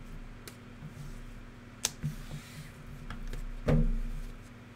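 Handling of a trading-card box and its packaging on a table: a sharp tap a little under two seconds in, a brief faint rustle, then a louder knock with a dull thud about three-quarters through, over faint background music.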